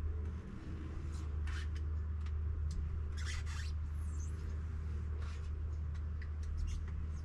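Short scraping and rustling sounds of a black pond liner being rubbed and handled, over a steady low hum.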